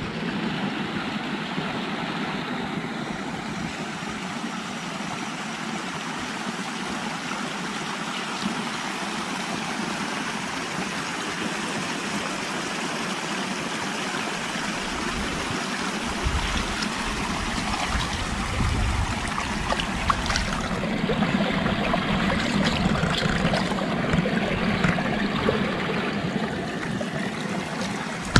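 Steady rush of flowing water, growing a little louder and fuller in the second half.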